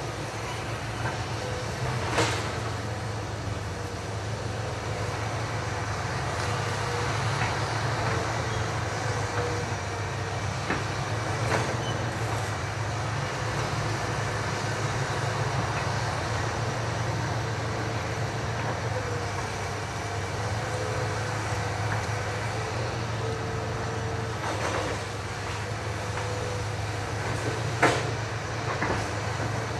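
Hitachi EX200 excavator's diesel engine running steadily at a distance, with a faint whine that comes and goes as it works. A few sharp knocks cut through, the loudest near the end.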